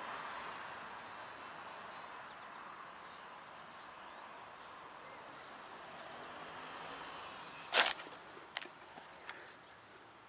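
RC Factory Edge 540 Mini foam model plane's electric motor and propeller whining in flight, growing louder near the end of its approach and then cutting out. About eight seconds in there is a sharp crack as it touches down on pavement, followed by a few lighter knocks as it skids to a stop.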